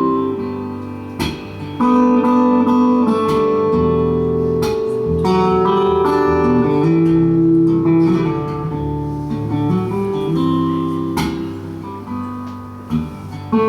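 Acoustic guitar playing an instrumental passage between the sung lines of a song, its picked and strummed chords left ringing.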